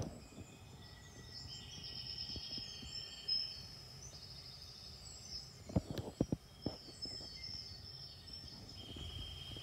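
Faint insect trilling with bird chirps, high and steady. A quick cluster of light clicks about six seconds in.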